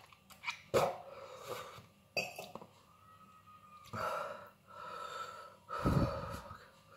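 A man gasping and breathing hard in a series of sharp, noisy breaths, the loudest about six seconds in: pained breathing from the burn of a just-eaten 7 Pot Douglah chilli.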